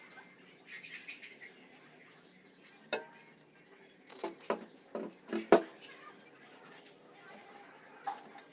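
Sharp knocks and clinks of a steel crowbar being handled and set down on a wooden tabletop. Several come in a cluster around the middle, and one more comes near the end as it is stood on its chisel end.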